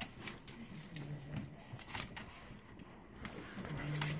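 Pug puppies scrabbling and shuffling against a plastic kiddie pool and its towels, with scattered scratchy clicks, and two short low grunts, one about a second in and one near the end.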